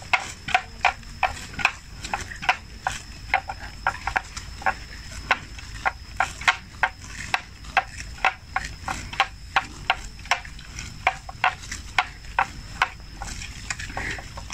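Water buffalo grazing, tearing off mouthfuls of grass in a quick irregular series of sharp rips, about two to three a second, that thin out near the end.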